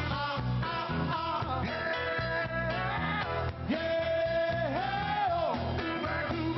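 Men singing rock and roll together at microphones with a live band. There is one long held note near the middle that steps up in pitch and then falls away.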